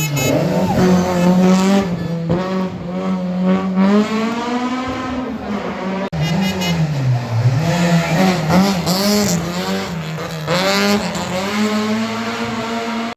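Rally cars driven hard on a special stage, engines revving up and dropping back again and again through gear changes and corners. The sound changes abruptly about six seconds in.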